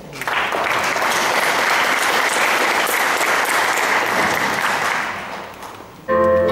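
Audience applauding, dying away about five seconds in. Near the end a slow, lyrical song starts with a soft piano-like intro.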